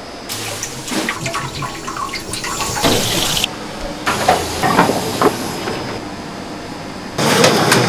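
Restaurant kitchen prep sounds: a rush of running water from a sink that cuts off abruptly partway through, among scattered knocks of a knife on a plastic cutting board and of plates. Near the end the sound jumps to louder, busier clatter.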